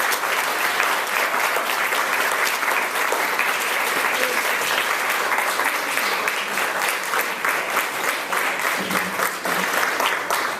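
Audience applauding steadily, hand claps in a dense mass, for about ten seconds after the new president is installed, a little thinner near the end.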